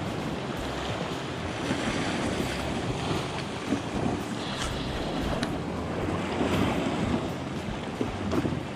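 Sea water splashing and lapping against a small boat's hull, with wind buffeting the microphone.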